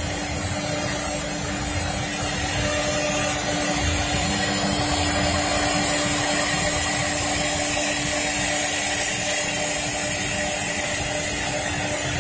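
Three-spindle CNC router running steadily with a high whine as its bits engrave a board.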